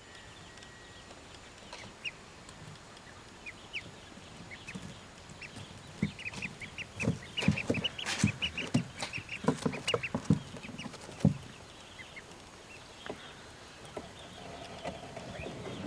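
Ancona ducklings peeping: many short, high chirps, busiest in the middle, with scattered low thumps and knocks among them.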